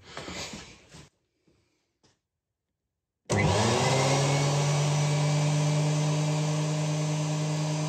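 DeWALT DW735 thickness planer switched on for a test run with its new helical cutter head, inserts not yet fitted. It starts suddenly about three seconds in, its whine rises over about a second as the motor and cutter head spin up, then it runs steadily at speed with no wood going through.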